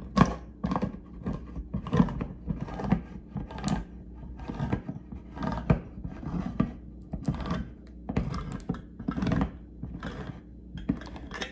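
Handheld manual can opener with a turning key cutting around a steel can lid: a steady run of sharp metallic clicks, about three a second, as the cutting wheel ratchets around the rim.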